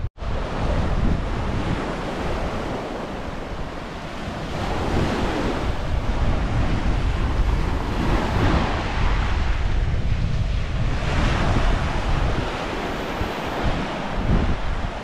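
Small sea waves breaking and washing up a sand-and-pebble shore, the wash swelling every few seconds, with wind buffeting the microphone throughout.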